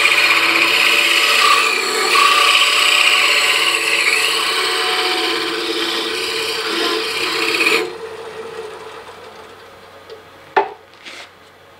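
Hole saw held against a wooden sphere spinning on a lathe, scraping steadily as it trues the sphere round. The scraping stops abruptly about eight seconds in, leaving the lathe running quietly, and two sharp knocks follow near the end.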